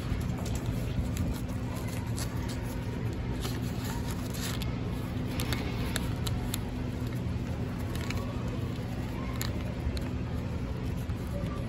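A sheet of paper being folded and creased by hand into a paper boat: scattered crisp crinkles and rustles over a steady low hum.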